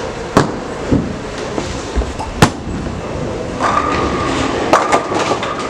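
Bowling alley din: a steady rumble of balls rolling down the lanes, broken by several sharp knocks and clatters of pins and balls, the loudest about two and a half seconds in.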